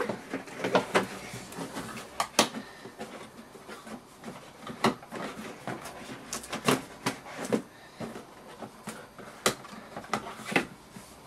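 A cardboard laptop box and its packaging being handled: scattered sharp taps and knocks at irregular intervals, with light rustling between them.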